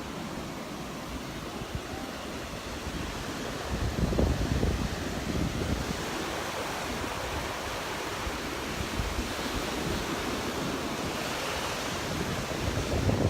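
Rough surf breaking and washing up the beach, with wind buffeting the microphone; a wave surges louder about four seconds in.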